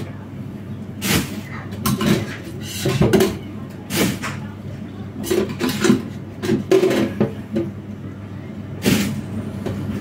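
Scattered knocks and clatters of household objects being handled, about eight in ten seconds, like cupboard doors and kitchenware, over a steady low hum.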